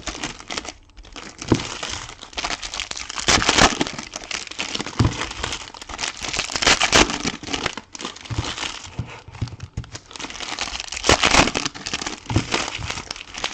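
Trading-card box and pack wrappers crinkling and tearing in irregular bursts as they are opened and handled.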